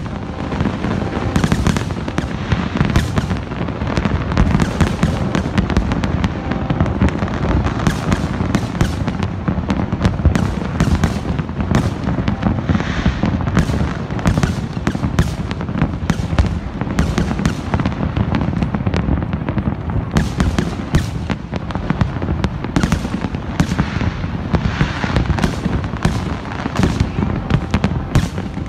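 Massed fireworks display: a continuous barrage of bangs and crackles from many shells bursting at once, over a low rumble.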